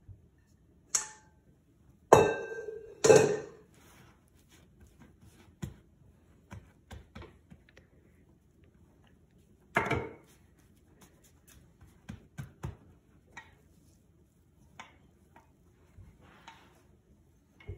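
Scattered knocks and clatters of baking utensils handled and set down on a countertop. Two loud, briefly ringing clanks come about two and three seconds in and another about ten seconds in, with lighter taps and bumps in between as scone dough is pressed out and rolled with a rolling pin.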